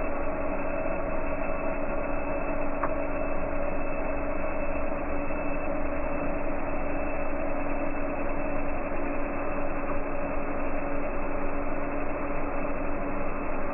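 M3D 3D printer running, its stepper motors giving a steady hum made of two constant tones, with one faint click about three seconds in.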